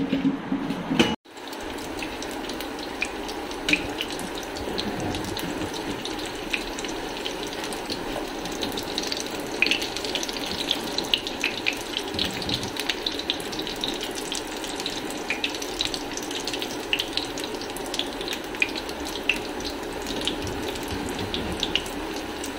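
Potato cutlets shallow-frying in hot oil in a frying pan: a steady sizzle with scattered crackles and pops, starting about a second in.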